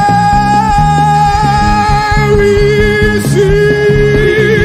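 Live gospel worship music: a singer holds one long high note, then drops to a lower held note about halfway through, over steady band accompaniment with bass.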